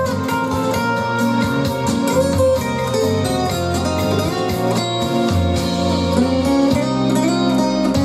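Guitar music played back through a pair of small bookshelf speakers driven by a Nobsound Mini Bluetooth amplifier, with a sweet, warm tone and ample bass.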